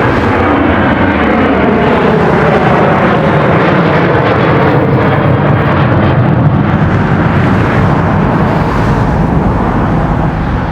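Boeing 737-800 jet airliner at takeoff power: a loud, steady engine roar. A faint whine falls in pitch over the first few seconds.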